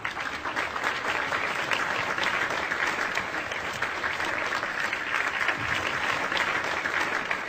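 Audience applauding steadily, a dense crackle of many hands clapping that cuts off suddenly at the end.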